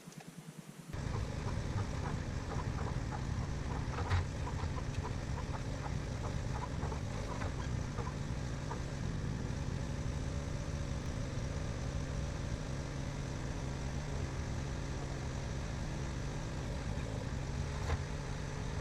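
An engine running steadily, with a few light knocks about four seconds in and again a few seconds later.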